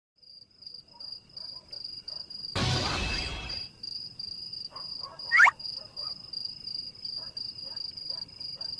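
Crickets chirping in a steady, high, pulsing trill. About two and a half seconds in there is a one-second rush of noise, and about five seconds in a short, sharp rising whistle.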